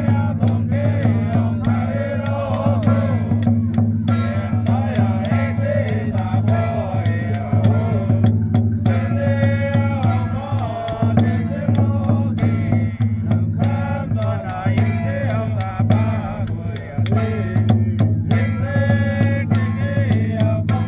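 Xiaofa ritual chanting: a sung incantation with a wavering melody, over irregular strikes on a large barrel drum, with a steady low hum underneath.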